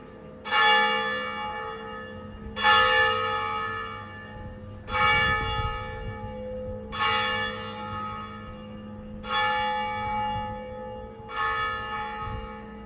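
A single church bell tolling slowly, struck six times at even intervals of a little over two seconds, each stroke ringing on and fading before the next.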